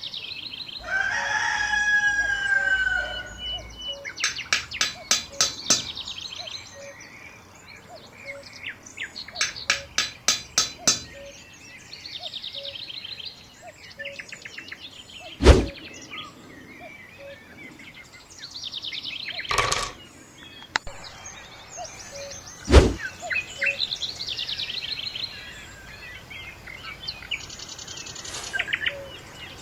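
Birds calling outdoors: a long falling call about a second in, many short chirps, and rapid trains of clicks. Three sharp knocks stand out loudest, in the middle of the stretch.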